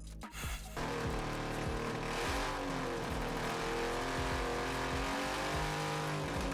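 Kawasaki Brute Force V-twin engine, bored out to 840cc, running in a ride-on buggy build; it comes in about a second in and holds a deep, steady grumble, its speed rising and falling slightly.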